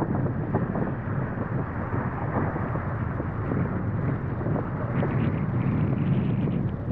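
Steady wind buffeting the microphone, a low rumbling rush, over the wash of shallow sea water around rocks and kelp.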